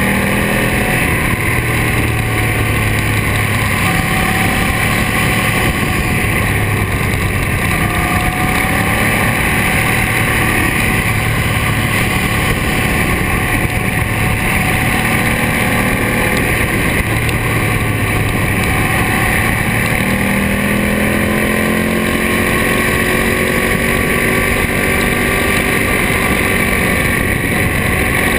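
2007 Ducati Monster S4RS's 998 cc L-twin engine breathing through a Termignoni exhaust, running under way with its pitch rising and falling with the throttle, and climbing clearly about twenty seconds in. Wind rushes steadily over the microphone.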